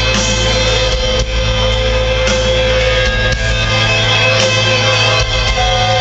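Live rock band with electric guitar playing through a loud arena sound system, heard from the seats.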